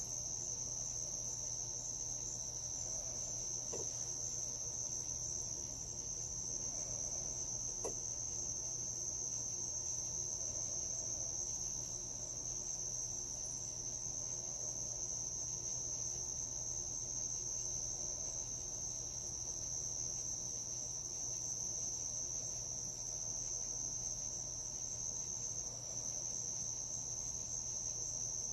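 Crickets chirping in a dense, unbroken high-pitched chorus, over a faint steady low hum.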